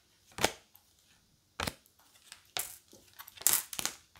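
Oracle cards being handled while sorting through a deck: a few short, separate rustles and snaps of card stock about a second apart, the loudest near the end.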